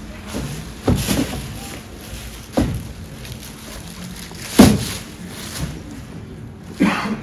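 Stuffed blue plastic bags being handled and stacked: plastic rustling with four dull thumps as bags are set down, about one every two seconds, the loudest a little past halfway.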